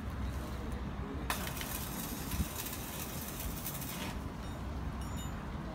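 Worksite ambience on an open rooftop: a steady low rumble with a higher hiss, and a few light knocks and clinks.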